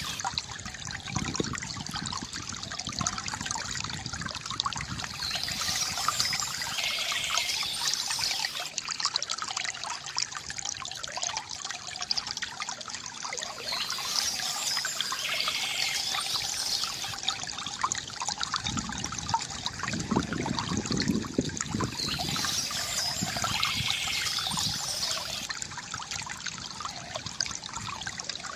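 Water trickling and gurgling steadily from a bamboo fountain, with heavier low gurgles at times. A bird calls briefly three times, about every nine seconds.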